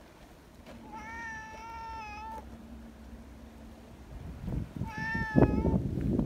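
A cat meowing twice: a long, drawn-out meow about a second in and a shorter one near five seconds. Low rustling and thumps start under the second meow, with one sharp knock.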